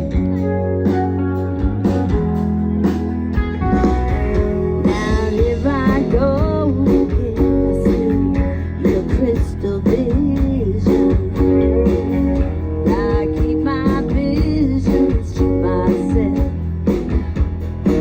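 Blues-style music led by guitar, with wavering melodic lines that may be a voice or a slide guitar.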